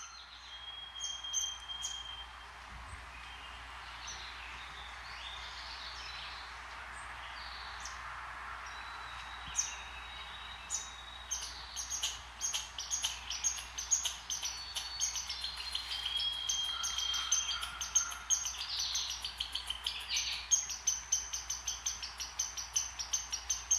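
Small birds chirping, with a few short held whistles at first, then from about halfway a dense run of rapid high chirps over a steady hiss.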